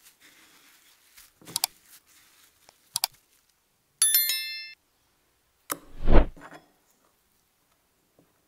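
Subscribe-button animation sound effects: two sharp mouse clicks, then a bright ringing bell chime about four seconds in. The loudest sound is a low thump that follows about two seconds later.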